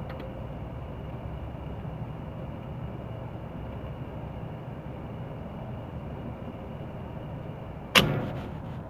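Steady low background rumble with a faint steady high tone. About eight seconds in, a single sharp, loud knock that dies away within half a second.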